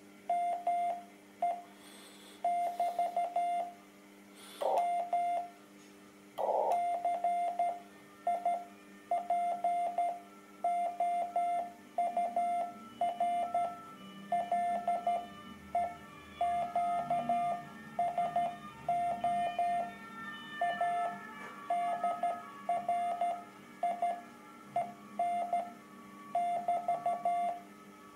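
Morse code (CW) from an amateur radio transceiver on the 30 m band: a single mid-pitched tone keyed on and off in dots and dashes, over faint receiver hiss, with a few short clicks in the first several seconds.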